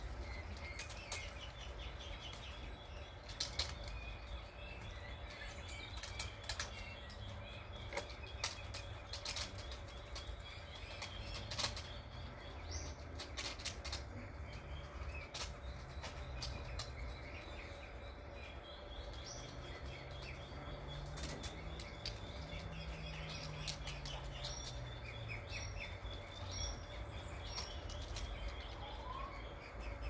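Irregular sharp clicks and taps, a few seconds apart and sometimes in quick pairs, as a young Egyptian goose pecks and flicks a piece of plastic on a hard painted floor. Faint high bird chirps come through now and then over a steady low background rumble.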